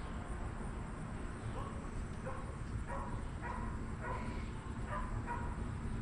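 Short animal calls, often in pairs, about two a second for a few seconds, over a steady low rumble.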